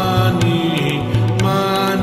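Background music: a slow melody of long held tones over a low pulsing bass.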